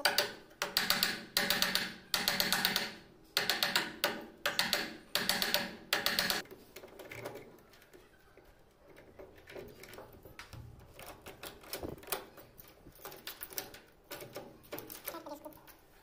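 Wood chisel scraping out the mortise pocket in a wooden door's edge in about nine short, rasping strokes. After about six and a half seconds come quieter knocks and rubbing as the metal mortise lock body is pushed into the pocket.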